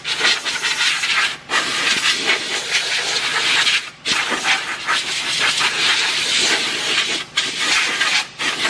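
Hand deburring tool scraping around the edge of a freshly cut round hole in sheet metal, in long passes with brief breaks between them.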